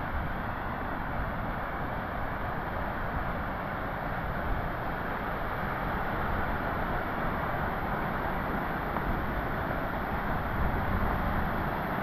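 Waterfall's steady roar of rushing, falling water, an even rumbling hiss that holds without a break.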